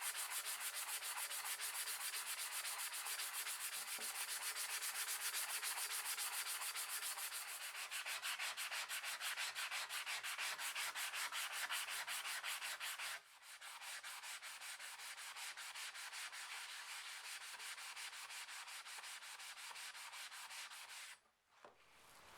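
Rapid, even back-and-forth hand sanding or scrubbing strokes, many per second. The rasping drops in level about thirteen seconds in and breaks off briefly near the end.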